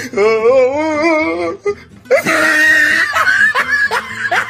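A wavering, sliding musical tone for about a second and a half. About two seconds in comes a loud, harsh burst, followed by women laughing.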